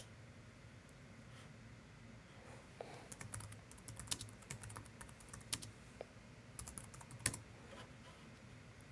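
Typing on a computer keyboard: a quick, uneven run of faint key clicks, with one louder keystroke near the end.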